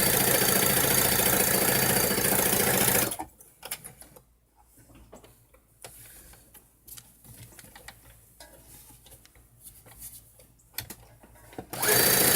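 Brother CS-6000 computerized sewing machine stitching at a steady speed. It stops about three seconds in, leaving a quiet stretch of faint clicks and handling sounds, then starts stitching again near the end.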